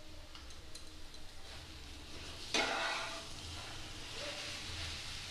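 Grated raw mango and fish roe frying in oil in a non-stick pan, sizzling while a flat metal spatula stirs and scrapes through them. One louder stroke of the spatula comes about two and a half seconds in.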